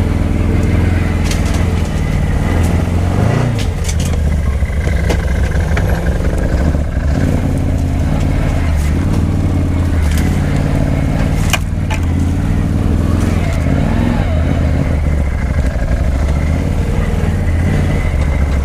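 ATV engine running while driving slowly over a gravel back road, its pitch rising and falling a few times with the throttle. Occasional sharp clicks and knocks come through over the engine.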